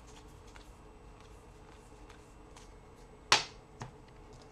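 Trading cards being handled: faint light ticks, then a sharp tap about three seconds in and a softer one half a second later.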